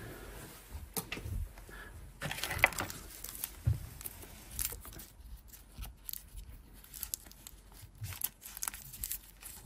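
Handling of a plastic syringe and a needle packet: a short tearing rustle a couple of seconds in as the packet is opened, then scattered small plastic clicks and taps as a fresh needle is fitted onto the syringe.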